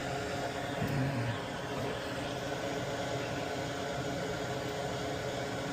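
Steady whir of a small electric fan running, an even hiss with a faint hum.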